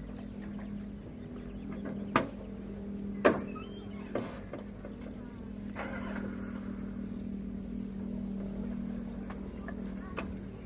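Excavator's diesel engine running steadily, with four sharp metallic knocks from the machine working, the loudest about three seconds in.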